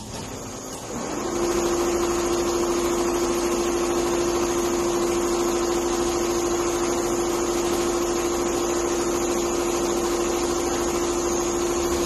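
Four-head computerised leather pattern sewing machine running: a steady mechanical hum with a steady whine that comes in about a second in and cuts off suddenly at the end.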